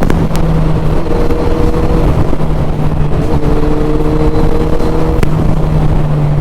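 Suzuki Hayabusa's inline-four engine running at steady road speed, its note holding level and then stepping up or down a few times.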